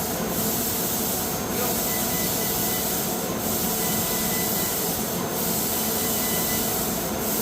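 CNC laser cutting machine running: a steady hiss with a faint steady whine under it, the hiss dipping briefly about every two seconds.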